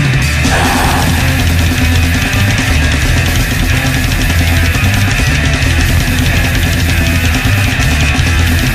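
Heavy metal band recording: distorted guitars, bass and drums playing a dense, loud, unbroken wall of sound.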